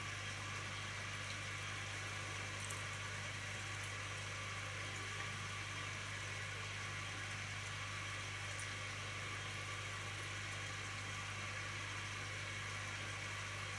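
Steady low hum with an even hiss over it and no distinct events: room tone.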